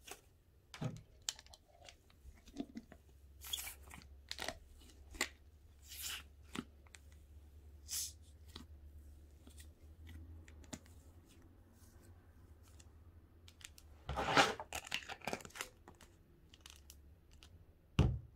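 Slime being squished and pulled apart by hand: scattered small clicks and soft tearing sounds, with a louder cluster about fourteen seconds in and one sharp sound near the end.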